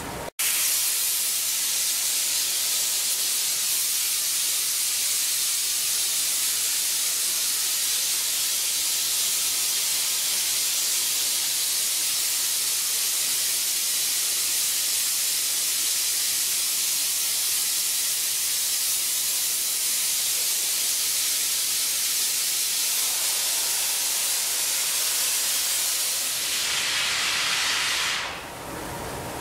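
Gas hand torch flame hissing steadily as it heats glass on a glass lathe, warming a joint for a glass-to-glass seal; it cuts in sharply just after the start and dies away near the end.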